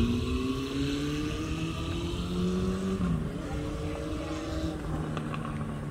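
A motor vehicle's engine accelerating: its pitch rises steadily, drops about three seconds in as it shifts gear, then rises again, over a low rumble of road noise.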